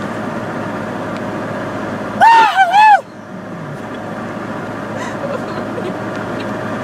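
Steady road and engine noise inside a car's cabin. About two seconds in, a loud, high-pitched wavering sound rises and falls three times in under a second, then stops.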